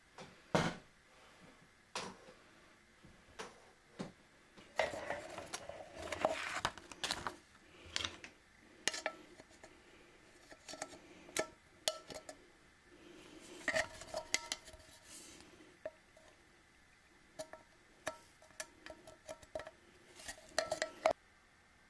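An empty steel tin can being picked up, turned over and handled: irregular light metallic clinks and knocks with rustling, denser twice, about a quarter and two-thirds of the way in.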